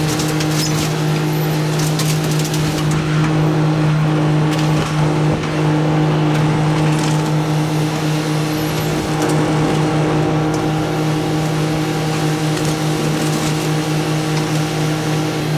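Small excavator's engine running steadily at working speed, with wooden boards cracking and splintering now and then, mostly in the first few seconds.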